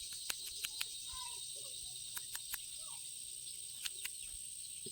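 Outdoor background of insects keeping up a steady high-pitched drone, with short calls from birds and about eight sharp clicks scattered through.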